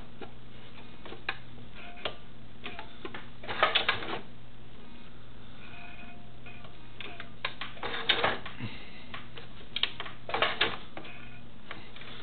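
Sewing machine fitted with a zipper foot, clicking and rattling in three short bouts over a steady low hum. The fabric is not feeding because the foot is not catching on the feed dogs.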